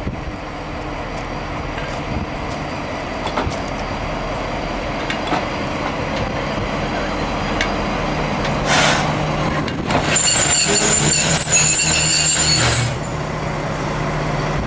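Diesel locomotives of a train running with a steady rumble and engine hum. A short hiss of air comes just before nine seconds in, then a high metallic squeal of steel wheels or brakes on the rails lasts about three seconds.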